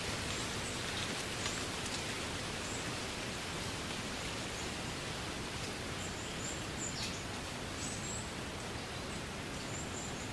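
Wind rustling through a reed bed, a steady hiss with a few faint high chirps scattered through it.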